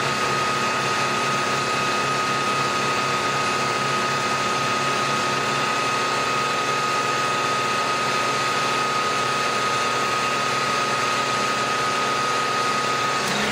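Milling machine face mill with indexable inserts cutting across the end of a metal block held in a vise, taking about 25 thousandths to square it. The cut makes a steady high whine over the spindle's running, and the whine stops just before the end as the cut finishes.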